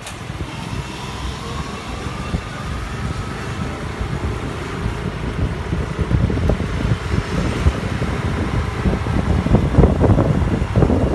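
Motorcycle running along a street, its engine under a rough rush of wind buffeting the microphone. A faint rising whine in the first couple of seconds, and the buffeting grows gustier near the end.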